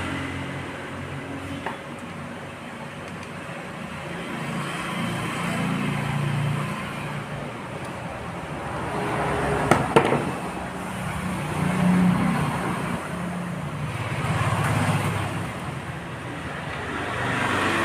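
Honda Dio scooter's single-cylinder engine running and rising and falling in loudness several times, with a couple of sharp cracks about halfway through. The engine is misfiring.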